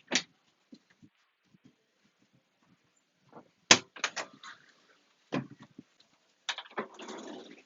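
Boat cockpit seat hardware being slid and latched into place: a scatter of sharp clicks and knocks, with a short sliding rub and a run of knocks near the end.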